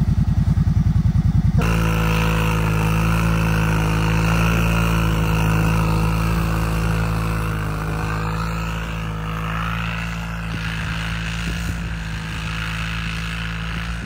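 Kawasaki Brute Force ATV engine running close by with an even, pulsing beat. After about a second and a half it gives way to a steady engine drone as the quad drives off through deep snow, slowly fading as it moves away.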